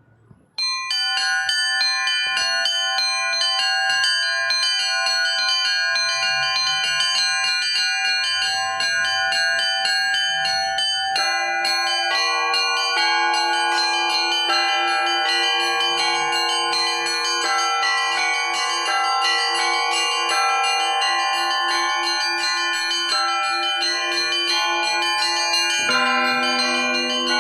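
Russian Orthodox church bells rung in a zvon by one bell-ringer. Rapid strokes on the high small bells begin about a second in. Middle bells join about eleven seconds in, and a deeper bell joins near the end, the tones ringing on over one another.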